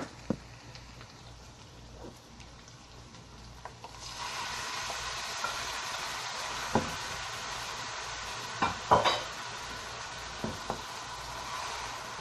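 Chopped jute leaves (saluyot, molokhia) tipped into a hot frying pan of oil with browned onion and garlic: a steady sizzle starts suddenly about four seconds in and keeps going. Before it there are a few light clicks, and in the middle come several knocks of a wooden spatula against the bowl and pan.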